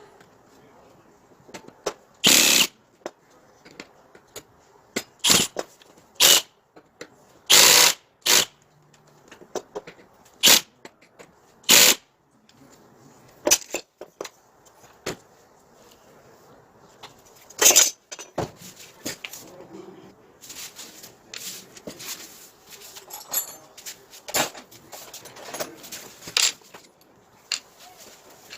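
Workshop tool noise while building a stand: a series of short, sharp knocks and brief tool bursts at irregular intervals, with quieter clicking and handling noise between them.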